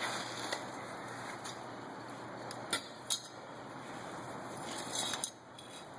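A few sharp clinks and taps, two close together about halfway through and a short cluster near the end, over a steady rushing hiss.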